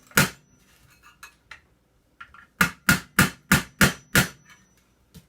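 A hammer striking a scrapped microwave oven magnetron to knock it apart: one blow, then after a pause a quick run of six blows, about three a second. The blows do not free the parts.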